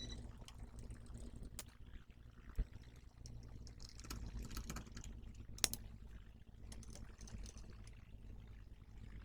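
Faint handling sounds of a power supply board being fitted back into its case: scattered small clicks and rattles, with two sharper knocks, the first between two and three seconds in and the second near the middle. A steady low hum runs underneath.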